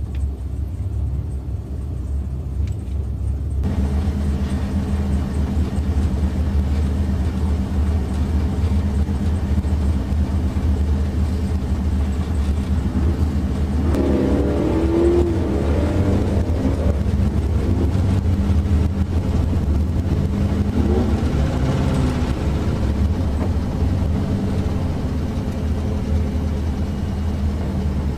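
Turbocharged 4.8L LS V8 idling, heard from inside the car's cabin as a steady low rumble that gets fuller a few seconds in. Twice a higher wavering sound rises and falls over it. The owner says the car wasn't running well.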